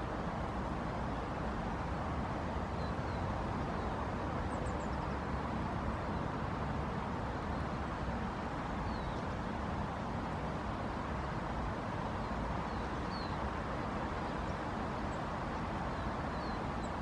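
Steady rumble of distant city traffic, with a few faint, short high chirps now and then.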